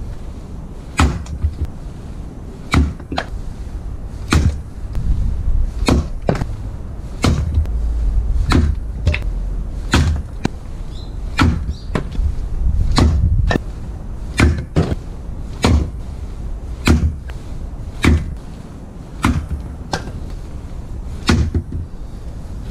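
Fiskars X17 splitting axe chopping firewood, a sharp crack of steel into wood about every second and a half, in a steady rhythm of strokes.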